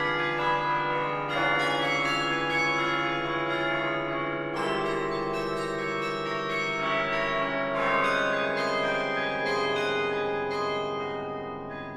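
Carillon bells playing quick running figures over deep held bells, the notes ringing on into one another; the sound starts to die away near the end.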